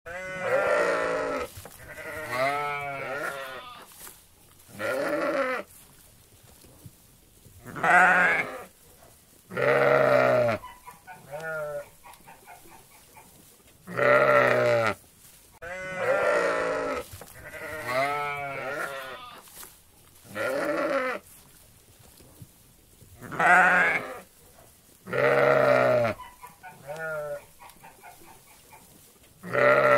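A flock of sheep bleating: about a dozen calls, one after another roughly every two seconds, each up to a second and a half long with a quavering, wavering pitch. Some calls are loud and close, others fainter.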